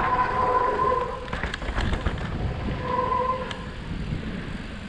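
Mountain bike brakes squealing in a steady high tone, once for about a second and a half at the start and again briefly about three seconds in, over the rumble of tyres rolling on a rough dirt trail and sharp clicks and rattles from the bike.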